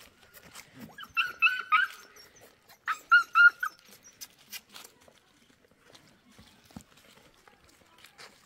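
Puppy yapping in two quick runs of short, high yelps, about four in each, a second or so apart, as it plays. Faint scuffing follows.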